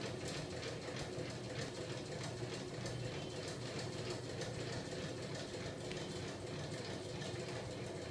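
Homemade magnet-coupled crankshaft engine rig running, driven by its small 12 V electric motor and turning heavy flywheels: a steady mechanical whir with a fast, even clatter of moving linkages.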